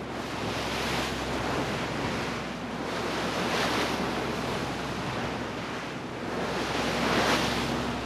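Sea water rushing and splashing along the hull of a moving fishing boat, surging about three times, over the steady low drone of the boat's engine.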